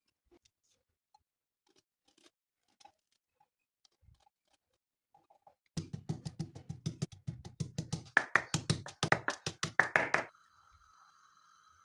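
A fast, even run of hard knocking strokes, about seven a second, for roughly four seconds and growing louder toward the end. It stops abruptly and gives way to a faint steady hum.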